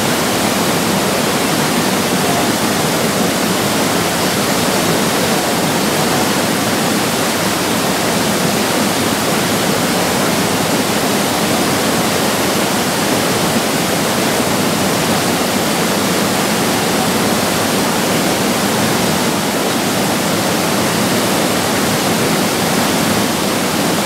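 Chamang Waterfall's falling water rushing loudly and steadily, an unbroken wash of noise with no let-up.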